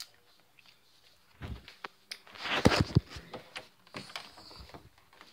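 Rustling and a few knocks from a handheld phone camera being moved and handled, the loudest cluster about two and a half seconds in.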